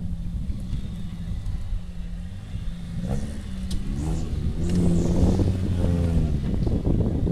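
Off-road 4x4 vehicle's engine running, its pitch and level climbing about halfway through as it revs up, then holding steady.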